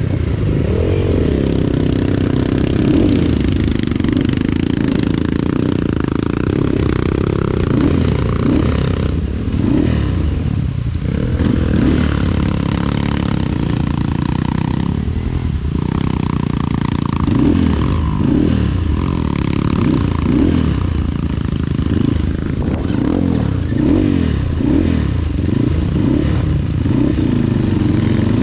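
Off-road trail motorcycle engine revving hard in repeated bursts, its pitch rising and falling, as it is worked under load through a slippery trail section. The revving comes in quicker, choppier swells in the second half.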